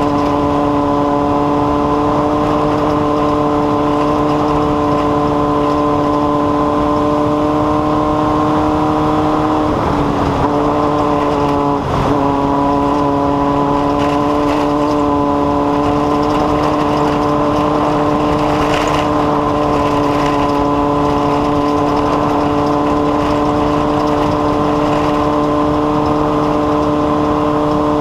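An engine running steadily at a constant high speed, holding one even pitch, with two brief stumbles about ten and twelve seconds in.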